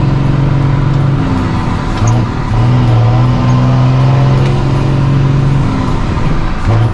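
Ford Cargo 1620 truck's diesel engine running loud through a straight exhaust, pulling in a steady drone. The note drops out briefly about a second in and again near the end as the driver shifts gears, then picks up at the same pitch.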